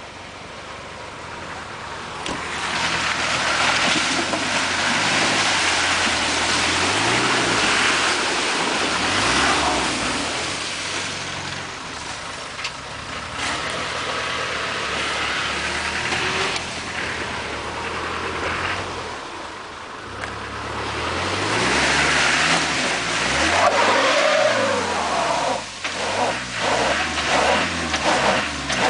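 Land Rover Discovery engine revving up and down again and again as it drives through deep mud, over a loud rush of spinning tyres and churned mud. There are two long spells of hard revving, and a run of short knocks near the end.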